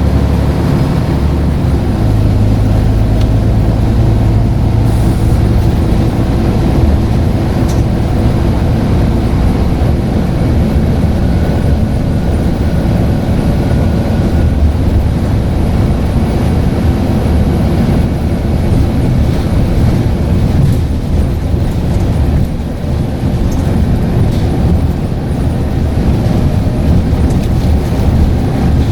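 Scania N94UD double-decker bus running under way: a steady low diesel engine drone mixed with road noise. A faint thin whine comes in for a few seconds near the middle.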